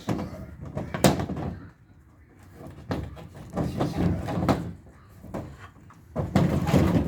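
Irregular knocks and bangs of carpentry work on a wooden patio cover, with one sharp blow about a second in.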